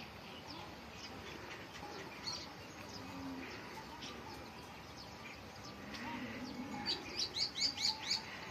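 Birds chirping over a low steady outdoor background, with a quick run of loud, sharp chirps, about five a second, near the end.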